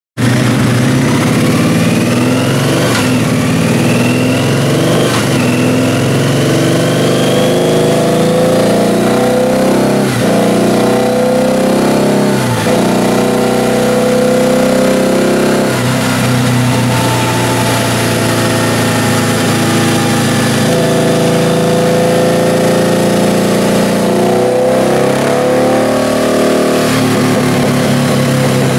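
Harley-Davidson VRSCDX Night Rod Special's 1130 cc V-twin running hard on a motorcycle dyno through loud exhausts. The engine is held at high revs throughout, and its pitch climbs over the first several seconds, then rises and falls as the throttle is worked, with a few brief dips around the middle.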